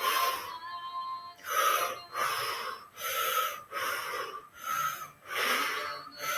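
A person breathing rhythmically and audibly in a pranayama breathing exercise, quick hissing breaths following one another at a steady pace of roughly one every three-quarters of a second.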